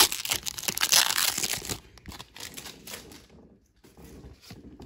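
Foil wrapper of a Pokémon trading-card booster pack crinkling as the pack is opened and the cards are pulled out. The crinkling stops about two seconds in, leaving only faint handling sounds.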